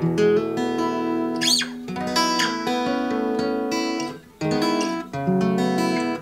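Acoustic guitar strummed and picked in chords, dry with no effects and slightly out of tune, with a short break in the playing about four seconds in. A brief rising squeak sounds about one and a half seconds in.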